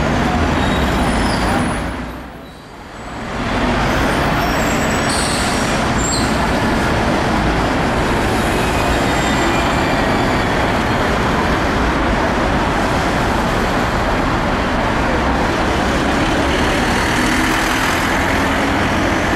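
City traffic with buses passing close by: a loud, steady rush of engine and road noise, with a brief lull about two seconds in.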